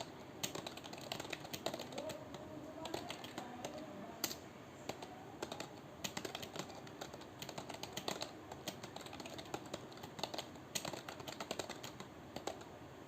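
Fast, continuous clatter of keystrokes on a computer keyboard, typed at roughly 80 words a minute, stopping near the end.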